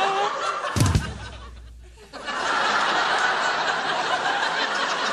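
Sitcom studio audience laughing. A single thud comes about a second in, the sound dies away briefly, and the laughter swells back up after about two seconds.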